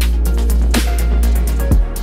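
Electronic background music with a heavy, steady bass and sharp drum hits about every second.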